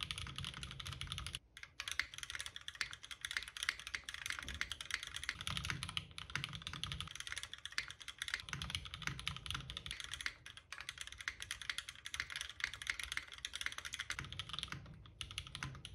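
Continuous fast typing on a Bias 2.0 prototype custom mechanical keyboard: a dense run of key clicks and clacks, with a brief pause about a second and a half in.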